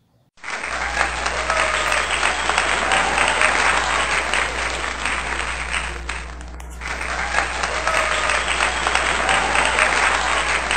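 Crowd applauding, a dense clapping that starts suddenly about half a second in, dips briefly about six seconds in, then starts up again.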